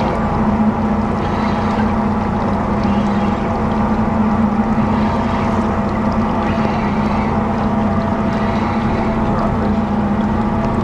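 Outboard motor idling with a steady, even hum.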